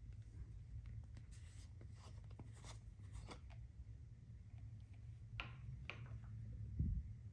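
Faint scraping and light tapping as slime-making materials and containers are handled, with two sharper scrapes past the middle and a low thump near the end, over a steady low hum.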